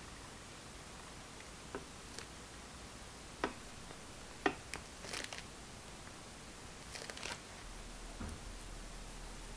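A piping bag is squeezed as sponge batter is piped onto parchment in a baking pan, giving a few short clicks and two brief crinkling bursts over a faint steady hiss. A soft low knock comes near the end.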